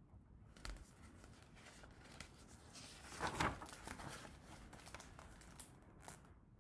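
A picture-book page being turned: a soft paper rustle, loudest a little past three seconds in, with a few faint handling clicks around it.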